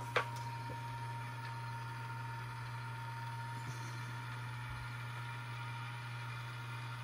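Steady low hum with a thin, high-pitched whine over it, and one sharp click just after the start.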